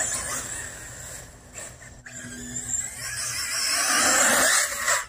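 HPI Vorza RC buggy running on a 6S battery over loose dirt: an even rushing noise of the motor and tyres that swells near the end and stops abruptly.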